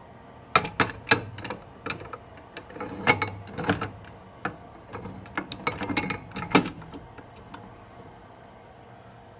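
Pottery clay extruder being worked by hand: a run of irregular metal clanks and clicks from the lever mechanism, the loudest near the start and again about six and a half seconds in.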